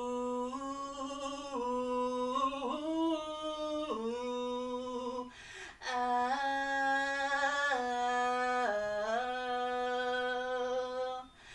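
A man's voice singing a wordless melody in long held notes that step up and down in pitch, with a short pause for breath about five and a half seconds in.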